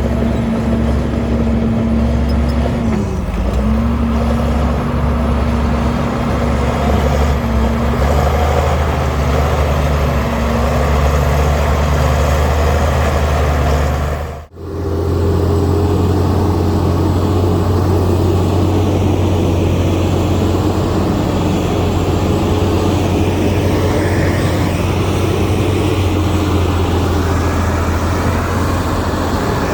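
Heavy diesel engine of earthmoving equipment running steadily with a low drone. The note dips briefly about three seconds in. It drops out for an instant about halfway through, then comes back with a different steady engine note.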